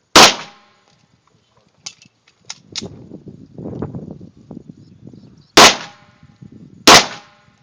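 Three 9mm pistol shots: one just after the start and two near the end, about a second and a half apart. Between them are a few light clicks and a stretch of shuffling.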